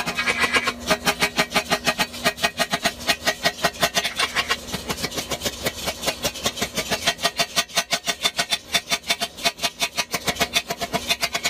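Hammer beating the red-hot end of a steel bar on a steel block: rapid, even metal-on-metal blows, about six a second, as the hot end is forged to a taper.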